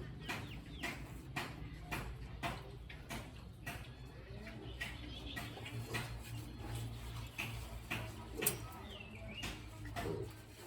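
Irregular clicks and knocks over a steady low hum, with a few brief bird chirps about halfway and near the end.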